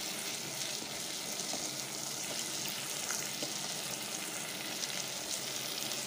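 Omena (small dried fish) frying in oil with onions and tomato in a metal pot, a steady sizzle, with a wooden spoon stirring and scraping through the fish and giving a few faint clicks.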